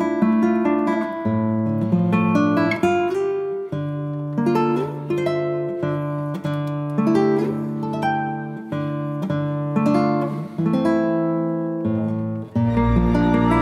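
Background music: a plucked acoustic guitar playing a melody of picked notes. Near the end it gives way to a fuller, sustained passage.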